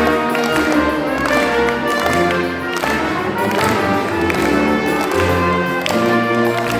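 Brass ensemble of trumpets, French horn, trombone and tuba with percussion playing a choro: held brass notes move over a low tuba bass line, with light percussion strikes.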